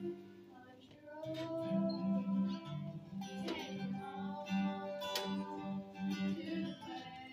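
Acoustic guitar music: chords strummed, with held melody notes over them.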